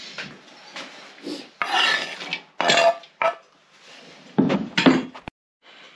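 Kitchen prep noises: a knife scraping and knocking on a wooden cutting board and a metal pot clattering, in several short separate bursts.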